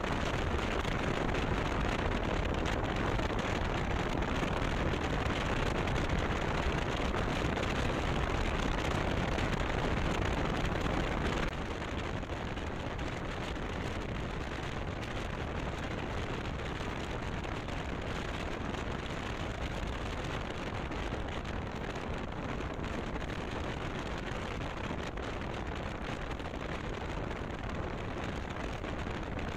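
Wind rushing over the microphone of a camera on a moving motorcycle, mixed with road and engine noise from the ride. The rushing drops abruptly in level about a third of the way through and then stays steady.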